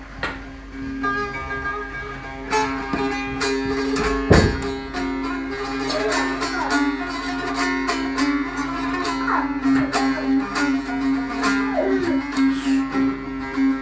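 Long-necked lutes playing an instrumental passage of plucked notes over a steady ringing drone note, with a sharp thump about four seconds in.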